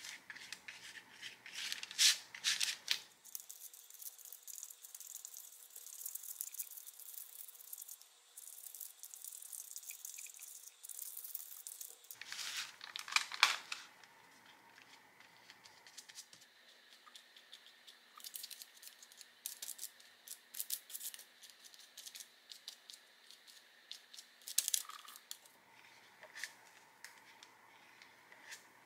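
A paintbrush dragging and dabbing acrylic paint across paper, making dry scratchy strokes and light ticks. There are two louder scrubbing flurries, about 2 and 13 seconds in.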